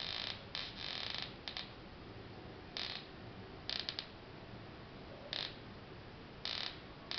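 High-voltage multiplier circuit sparking across its wire leads in irregular short hissing bursts, about eight of them, some with a fine crackle, as the leads are touched together to make connection.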